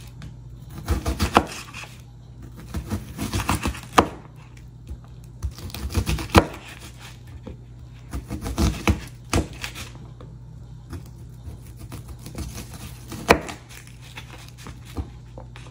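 Kitchen knife dicing an onion on a paper plate: runs of quick chopping strokes with short pauses between them, and a single stroke near the end.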